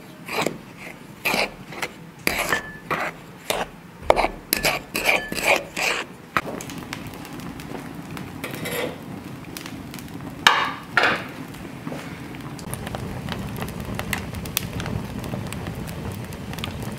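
Wooden spoon stirring flour in a ceramic mixing bowl, knocking and scraping against the sides in quick strokes for about six seconds. About ten seconds in, an earthenware pot clunks a couple of times as it is set on an iron trivet, then a steady low rush of the open hearth fire runs on.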